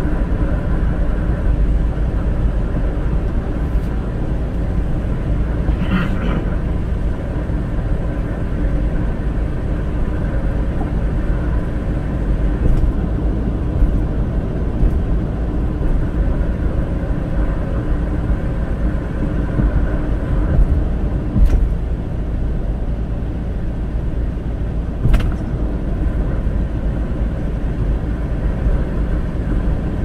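Car cabin noise while driving at a steady cruising speed: a steady low rumble of tyres and engine, broken by a few brief knocks, the loudest two near the middle and toward the end.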